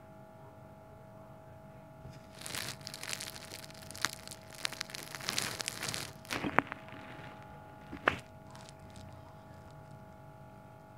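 Scratchy rustling lasting a few seconds, broken by several sharp clicks, with one last click after it dies away, over a faint steady hum.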